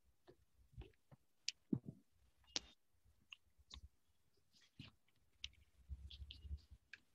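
Near silence broken by faint, irregular clicks and small taps, with a brief low rumble near the end.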